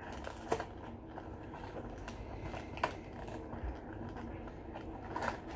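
Fingers picking at the cardboard flap of a cracker box, with a couple of light clicks over a low steady background.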